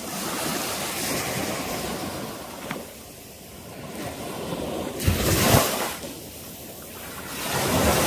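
Small sea waves washing up the beach in a steady surf, with two louder surges as waves break, about five seconds in and again near the end.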